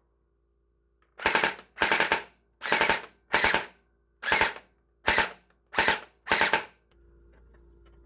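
Motorized Hydro Strike Pulsar Pro gel blaster dry-firing eight quick shots, roughly one every two thirds of a second. Each shot is a short whirring burst of the motor and gearbox driving the piston.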